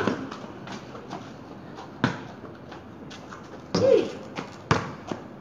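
Basketball bouncing on a concrete street during play: a handful of separate bounces and thuds, a second or two apart. A brief falling tone sounds near four seconds in, around the shot.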